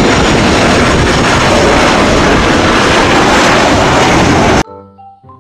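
Twin-engine jet airliner landing, its engines making a loud, steady rush of noise that cuts off suddenly near the end. Short pitched jingle tones follow the cut.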